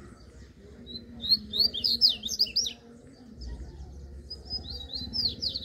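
Double-collared seedeater (coleiro) song: two quick phrases of rapid, sweeping, twittering notes, one about a second in and another near the end.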